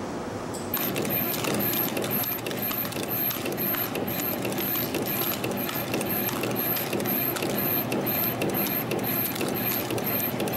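CNC spring coiling machine running, coiling compression springs from 0.5 mm wire and cutting each one off, with a fast rhythmic clicking of about three strokes a second. It comes in under a second in.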